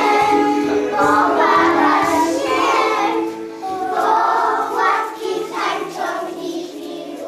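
A group of young children singing a song together over a steady instrumental accompaniment; the sound falls away over the last two seconds or so.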